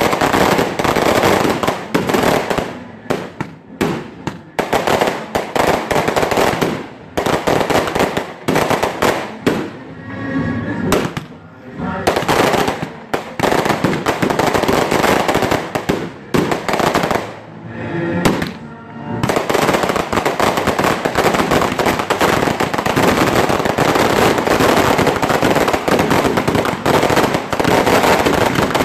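Daytime fireworks barrage: bangs and firecracker strings going off in rapid, overlapping succession. The volley thins briefly twice, then merges into an unbroken crackle from about twenty seconds in.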